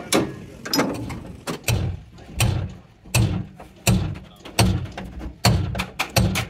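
Hand hammer knocking on a truck cab's sheet-steel door pillar: quick, sharp metallic knocks and clicks, with a regular low thud about every 0.7 s from about two seconds in.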